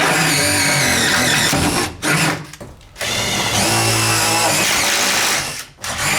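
Cordless drill boring a hole through the wall, run in two long bursts, the second longer, with short blips of the trigger between them and near the end.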